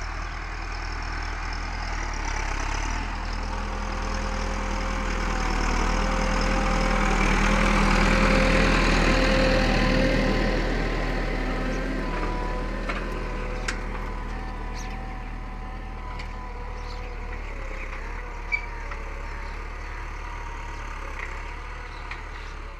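Farm tractor's diesel engine running steadily under load while it pulls a tine cultivator through ploughed soil. It grows louder toward the middle as the tractor comes close, then eases off, with a couple of sharp clicks in the second half.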